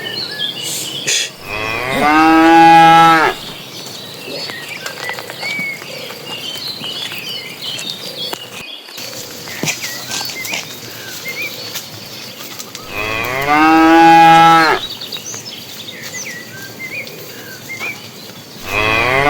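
Cows mooing: two long moos about eleven seconds apart, and a third beginning near the end, with birds chirping faintly in between.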